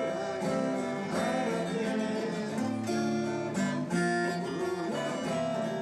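Two acoustic guitars played together, strumming chords with strokes about once a second.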